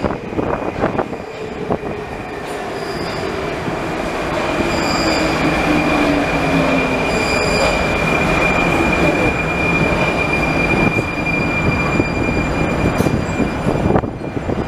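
Prague Metro 81-71M train running into the station and braking to a stop: a steady rumbling that grows louder, a whine falling in pitch as it slows, and a steady high squeal that ends as the train comes to rest.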